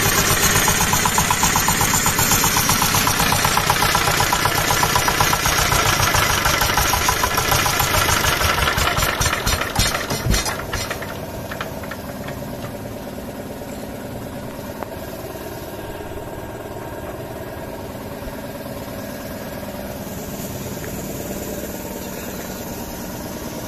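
Jiangfa 8 HP single-cylinder horizontal diesel engine running with a steady knocking beat; about ten seconds in it eases off and keeps running at a noticeably quieter idle.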